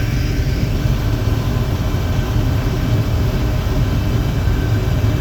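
Combine harvester running steadily while harvesting wheat: a constant low rumble with a faint steady whine above it.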